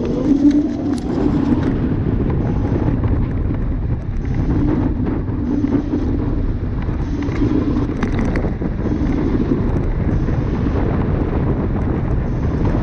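Wind buffeting the microphone and the rolling rumble of a Dualtron Thunder electric scooter riding at speed along an asphalt path.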